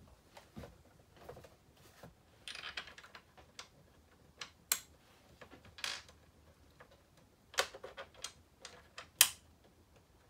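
Irregular light clicks and taps of metal screws against a steel TV wall-mount bracket as the mounting screws are fitted back in by hand, with a short rustle about two and a half seconds in.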